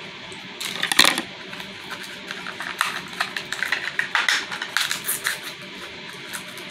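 Scissors snipping and thin plastic wrap crinkling as a Mini Brands capsule ball is cut and peeled open: a series of sharp clicks and crackles, the loudest about a second in.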